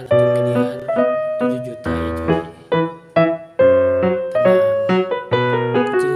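Background piano music: a simple melody over chords and bass notes, each note struck and fading.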